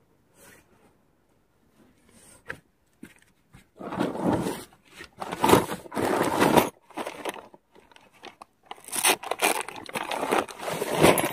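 Nylon tent fabric and a synthetic bag being handled, crinkling and rustling. It comes in two loud stretches, one starting about four seconds in and one near the end.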